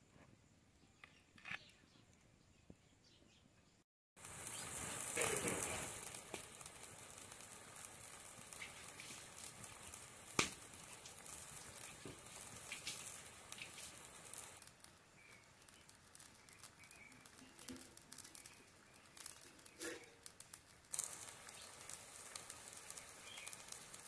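Spiced curry gravy boiling hard in a karahi over a wood fire: a dense, crackling bubbling and spitting. It begins suddenly about four seconds in after a few faint ticks, eases a little in the middle and grows louder again near the end.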